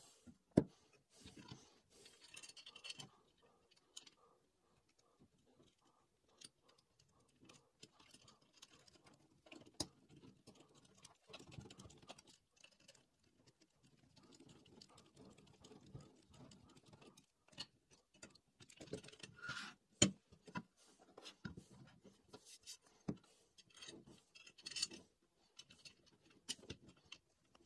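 Faint, scattered clicks and taps of small hardware being handled and fitted: a screwdriver turning bolts into nut blocks on aluminium CNC Y-plates. The sharpest click comes about twenty seconds in.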